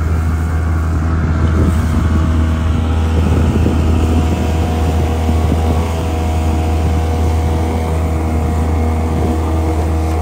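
Honda 8 hp four-stroke outboard running steadily at speed, pushing an inflatable boat, with water rushing in the wake and wind on the microphone.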